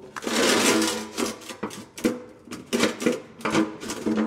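Lightweight aluminum diamond-plate approach ramp set down and slid across the floor into the end of a four-post lift's runway: a scrape in the first second, then a run of metallic clanks with a short ring as it is shoved into place.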